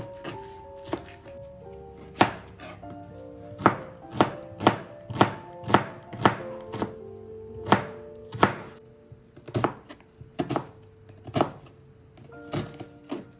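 Kitchen knife chopping napa cabbage and then slicing an onion on a plastic cutting board: sharp, uneven knocks of the blade hitting the board, roughly one or two a second, over soft background music.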